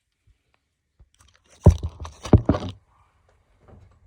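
Handling noise: a quick cluster of sharp knocks and rubbing, starting about a second and a half in and lasting about a second.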